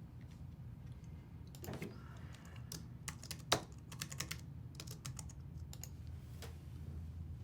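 Typing on a computer keyboard: irregular key clicks, some in quick runs, with pauses between.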